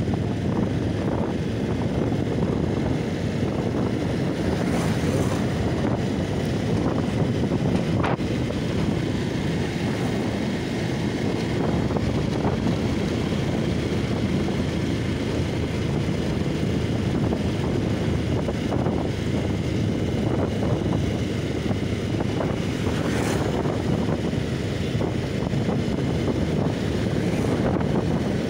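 Steady wind rush on the microphone of a moving motorcycle, with the bike's running and road noise underneath.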